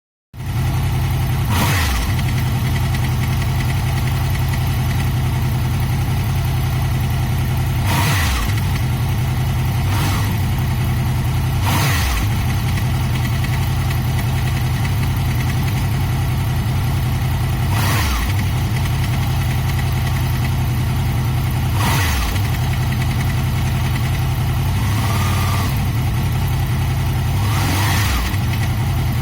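Honda VFR800 VTEC V4 motorcycle engine idling, with several brief throttle blips. It makes a rattling noise that the owner puts down to a cam chain tensioner needing a fix.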